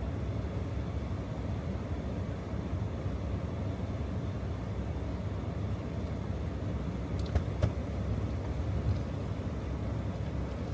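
Steady low rumble of a 2018 Jeep Wrangler JL Rubicon driving, heard from inside the cab, with a few faint clicks or rattles about seven seconds in.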